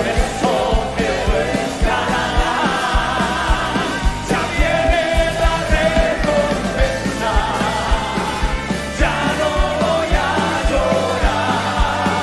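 A church band and choir perform a fast Spanish Pentecostal chorus live, with male lead voices and many voices singing together over a steady, quick drum beat.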